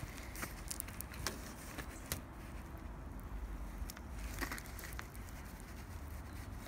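Scattered soft crackles and rustles of damp compost and wet paper packaging in a worm bin being moved by hand, over a low steady rumble.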